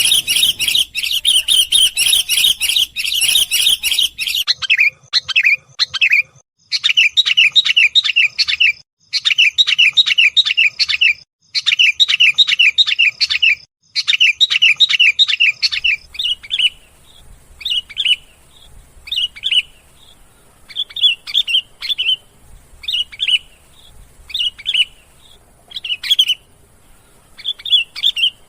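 Sooty-headed bulbul (kutilang) calls used as a lure recording to attract wild bulbuls. Fast, dense chirping gives way after a few seconds to short bursts of rapidly repeated notes. Past the halfway point these become brief separate phrases about once a second.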